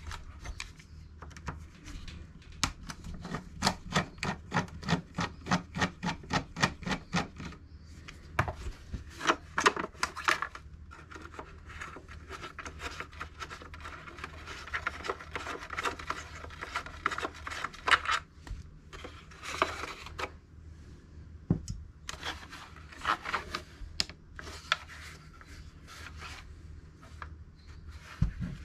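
A small screwdriver and hands working on the plastic case of a transistor radio being taken apart. First comes a run of rhythmic scraping strokes, about three a second, for several seconds. Then there is longer rubbing and scraping of plastic, with a few knocks.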